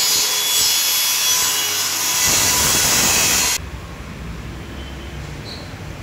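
Handheld circular saw cutting through a fibreboard sheet with a loud, steady noise that stops suddenly about three and a half seconds in. A quieter low hum follows.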